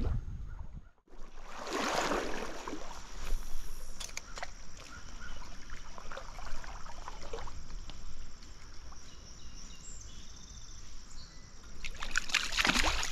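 Stream water running, with irregular splashing and sloshing. The sound cuts out briefly about a second in.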